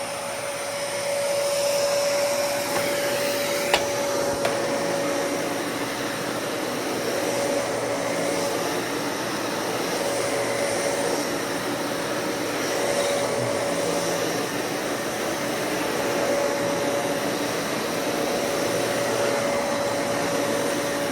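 Dyson Cinetic Big Ball vacuum cleaner running steadily as it vacuums, with a steady whine over its airflow noise. There is a single sharp click about four seconds in.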